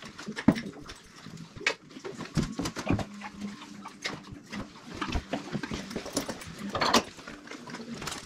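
Horses shifting in a stable aisle: scattered knocks of hooves on the concrete floor and clinks of halters and lead ropes. A louder short noisy sound comes just before seven seconds in.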